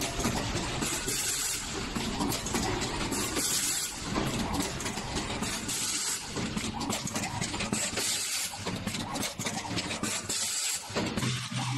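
Automatic terminal crimping and housing-insertion machine running: a steady, hissing mechanical noise with rapid clicks of its moving parts. A low steady hum sets in near the end.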